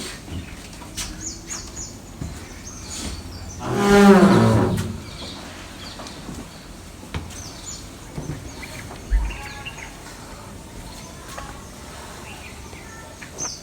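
A cow mooing once, one drawn-out call about four seconds in, with birds chirping and singing on and off.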